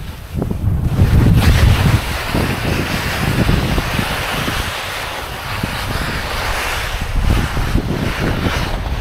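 Skis hissing and scraping over chopped-up snow on a steep descent, with wind buffeting the microphone. A heavy low wind rumble dominates the first couple of seconds, then a steady hiss of the skis on snow.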